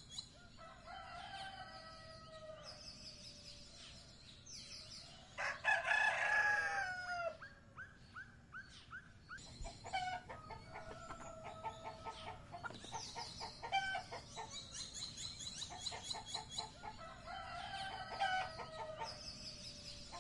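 A rooster crows once, loudly, about five and a half seconds in: one long call that falls in pitch at its end. Around it, hens cluck and small birds chirp in short, high, repeated phrases.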